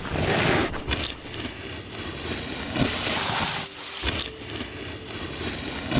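Salt being poured out onto the ground in a stream: a gritty, continuous hiss that swells twice, with a few scattered knocks.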